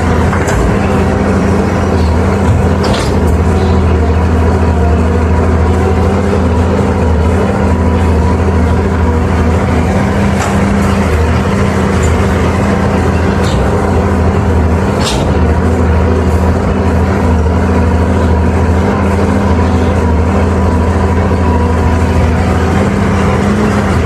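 Heavy diesel engine of construction machinery running steadily at constant speed, with a few brief sharp clicks or squeaks over it.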